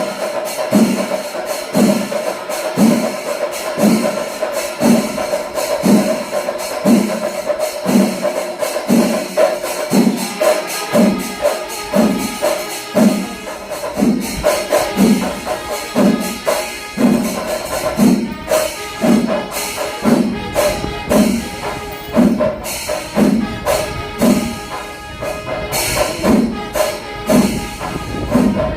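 Kerala temple percussion ensemble playing: drums beating an even pulse of about one heavy stroke a second, with cymbals jingling and a steady held tone over them. More melodic tones join about twelve seconds in.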